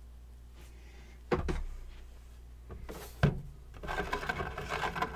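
Handling noises as a round turntable is set down inside an airbrush spray booth: a knock, then a sharper knock about three seconds in, followed by a second or so of scraping and rustling near the end.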